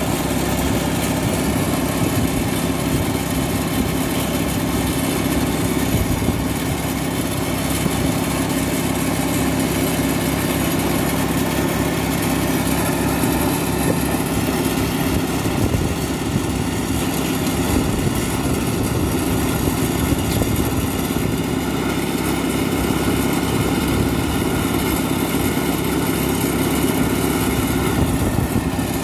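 Small portable petrol engine running steadily at one constant speed, never revving up or down.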